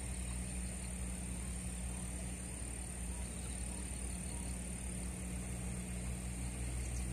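Steady outdoor ambience: a low, even rumble under a constant high-pitched insect drone.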